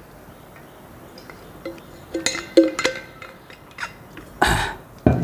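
A stainless steel water bottle being drunk from and handled: soft swallowing, then a few sharp clinks and knocks of metal as the bottle is closed and put down, and a short burst of noise about four and a half seconds in.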